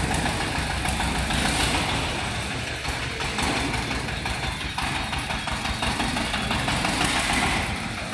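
A wheeled mini tractor's small engine running steadily with a rapid low chug as the tractor moves slowly.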